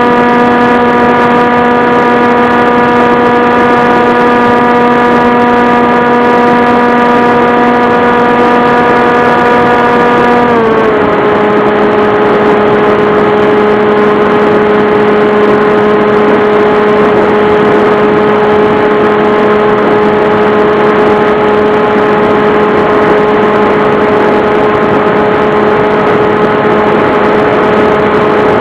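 Model airplane's motor and propeller running at a steady pitch over a rush of air noise. The pitch drops slightly about ten seconds in, then holds.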